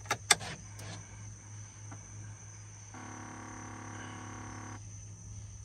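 Column gear-shift lever of a Chevrolet truck clicking twice through its detents just after the start. About halfway through, a steady humming tone lasts for nearly two seconds. Behind it all is a constant high, thin chirring of crickets.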